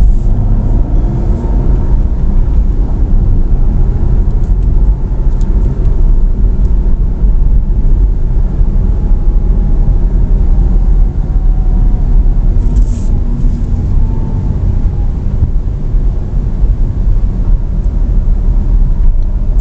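Car on the move, heard from inside the cabin: a steady low rumble of engine and road noise, with faint tones shifting in pitch as it drives.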